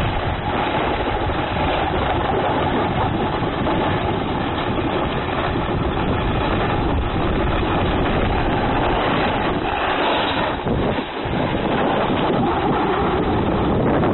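Steady rush of wind on the microphone mixed with the scraping slide of edges over groomed snow, as the camera is carried downhill at speed. The noise briefly drops about eleven seconds in.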